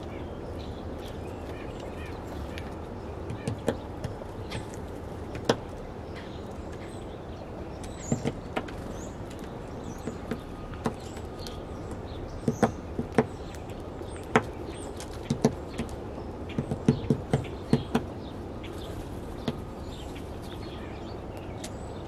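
Hairy woodpecker pecking at seed on a wooden platform feeder: irregular sharp taps, some in quick runs of two or three, over a steady low background noise.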